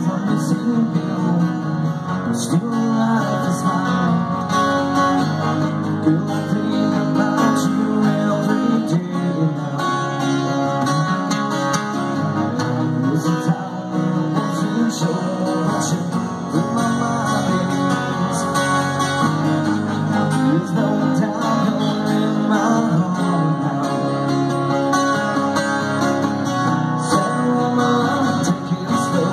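Two acoustic guitars played live together, one of them a twelve-string, strumming and picking a steady song, with a voice singing over them.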